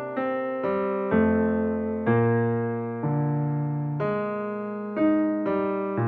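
Background keyboard music in a piano sound. Single notes and chords are struck about once a second and left to ring and fade.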